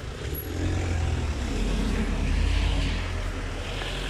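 Low rumble of road traffic, swelling about a second and a half in and easing near the end, as of a vehicle passing close by.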